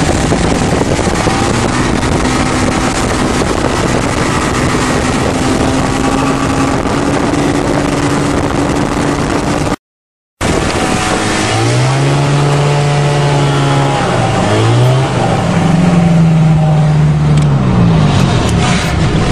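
Small airplane's engine and propeller heard from inside the cabin while taxiing across snow after landing, running steadily over heavy wind and propeller noise. The sound cuts out briefly about ten seconds in, and afterwards the engine speeds up and slows down several times as the throttle is worked.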